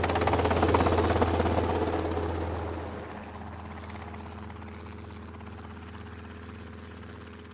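Sustained noise and hum from distorted electric guitars and amplifiers ringing out at the end of a rock track, with a fast fluttering texture. It is loud at first, fades over about a second from two seconds in, and then holds as a quiet steady drone.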